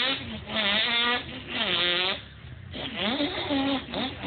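A man imitating a revving car engine with his voice, in about five short bursts that each rise and fall in pitch.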